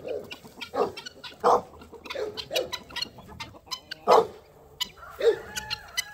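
A flock of free-ranging chickens clucking: short separate clucks and squawks, scattered irregularly.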